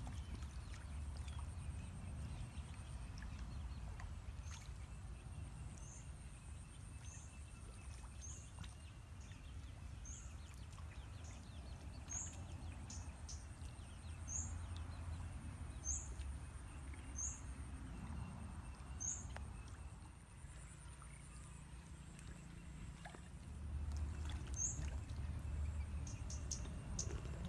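Outdoor pond-side ambience: a bird gives a short high chirp over and over, about once a second, over a steady high insect whine and a low rumble that swells and fades.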